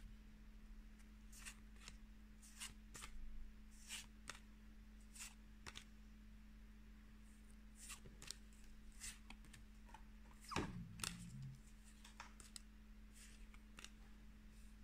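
Pokémon trading cards being handled and flicked one at a time through a hand-held stack: faint, crisp paper flicks and rustles every second or so over a faint steady hum.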